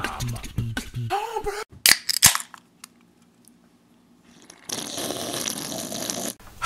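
The end of an intro music track, then a quick run of sharp cracks about two seconds in, a short near silence, and a steady hiss for the last two seconds.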